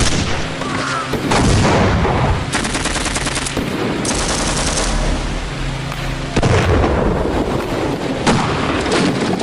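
Rapid bursts of automatic gunfire, a dense rattle of closely spaced shots with a few louder single reports.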